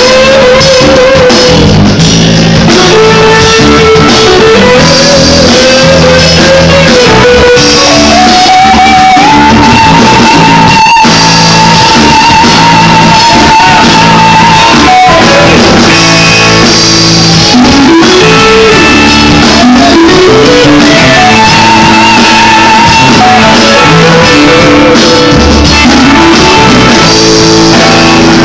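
A live band playing: electric guitar and drum kit under a melody line that climbs and is held with a wavering vibrato through the middle, then winds back down.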